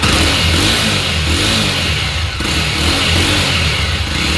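Jawa 42 motorcycle's single-cylinder engine running and being revved with the throttle to warm it up. It was push-started because the self-starter is not working.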